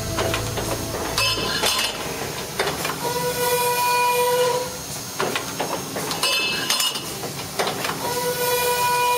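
Automatic tube saw running through its cutting cycle: a steady ringing tone, about a second and a half long, alternates with sharp metallic clinks and clatter as cut steel tubes drop into the collector. The cycle repeats about every four to five seconds.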